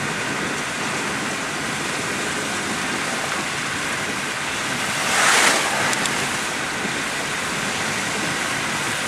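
Steady road noise heard inside a moving car: tyres hissing through wet, slushy hail on the road. About five seconds in there is a louder whoosh as an oncoming car passes.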